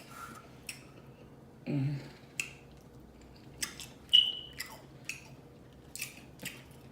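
Seafood boil being eaten: wet chewing and lip smacks with scattered sharp clicks, the loudest a little past four seconds. A short hummed "mm" of enjoyment about two seconds in.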